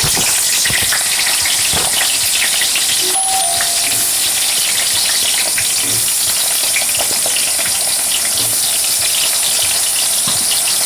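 Cut potatoes frying in hot oil in a pan: a steady, loud sizzle with scattered small crackles.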